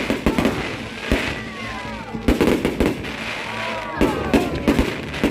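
Aerial fireworks bursting: a string of loud bangs, some in quick clusters of two or three.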